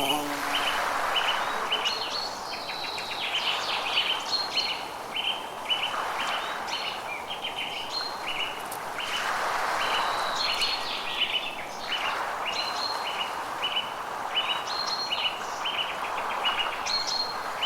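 Forest birdsong: several birds chirping, one repeating a short high note a couple of times a second, with trills and higher chirps between. Underneath is a steady hiss of natural ambience that swells and fades.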